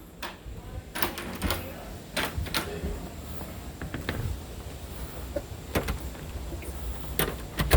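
A door and its latch hardware being handled: a scattered series of sharp clicks and knocks, about seven, over a steady low hum.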